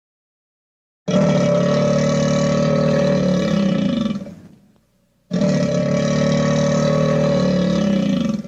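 Dimetrodon roar sound effect, a long growling roar played twice in a row; the two are identical, each starting abruptly and lasting about three seconds.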